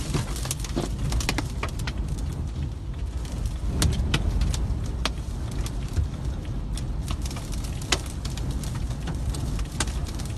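Storm wind rumbling around a car, heard from inside the cabin, with irregular sharp ticks as blown grit and debris strike the windscreen and body.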